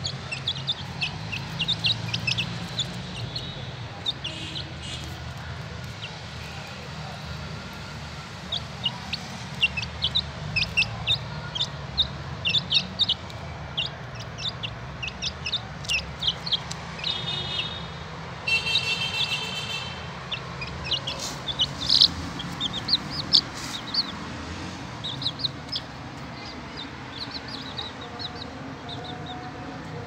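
Young chickens (chicks) peeping: many short, high chirps scattered throughout, with a denser run of rapid repeated calls about two-thirds of the way through. A low, steady hum runs underneath.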